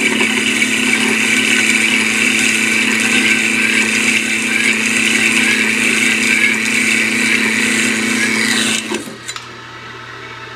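Pedrazzoli Mec Brown cold saw's circular blade cutting through metal bar stock, a steady sound with a high whine over a low hum. The cut is dry, with only a sprayed-on cutting lubricant and no flood coolant. About nine seconds in the cut ends and the sound drops to a quieter hum.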